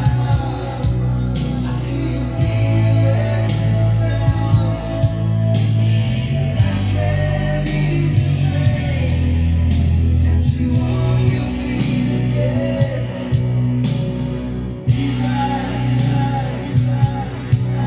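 Rock music with a male voice singing and guitar, played from a vinyl LP on an Acoustic Research turntable with a Shure V15 Type V-MR cartridge tracking the groove.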